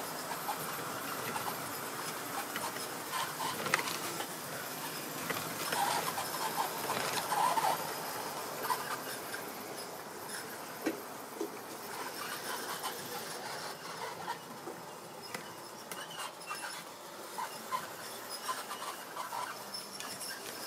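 Tri-ang model railway rolling stock being handled and coupled on the track: small plastic and metal clicks and rattles, scattered through, busiest a few seconds in.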